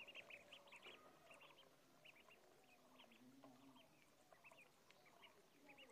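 A brood of ducklings peeping faintly, a quick flurry of high peeps in the first second, then scattered single peeps.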